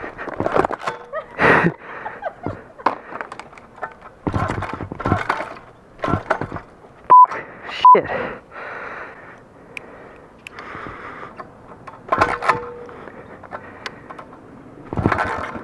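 Irregular knocks, clatter and scrapes from a pit bike being handled and rolled on concrete with its engine not running. Two short, sharp high beeps come about seven seconds in.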